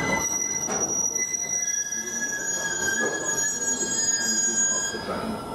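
A train's wheels squealing on the rails: several high, steady tones over a low rumble, dying away near the end.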